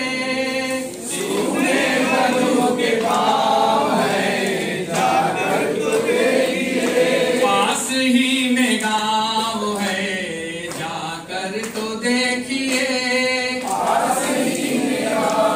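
A group of voices singing together without instruments, holding long notes that rise and fall.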